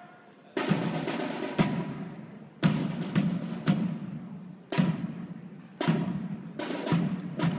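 Marching band's snare and bass drums playing a drum cadence, starting about half a second in, each hit echoing in a large hall.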